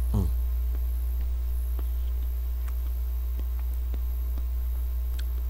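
Steady low hum, with a short vocal sound at the start and faint scattered clicks and mouth noises as a man eats ice cream from a spoon.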